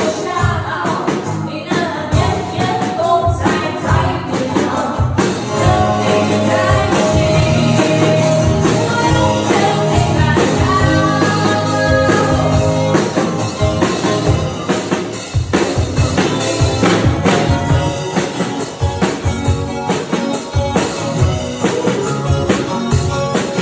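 Band music with a drum kit keeping a steady beat under a pitched melody line, from a Mandarin pop song played at a sound check.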